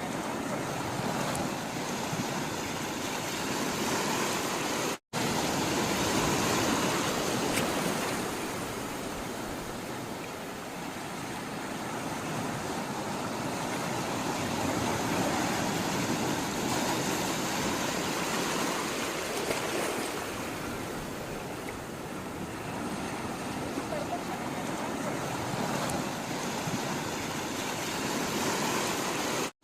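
Sea waves washing in and out in a steady rush that slowly swells and eases every ten seconds or so, broken by a momentary gap of silence about five seconds in.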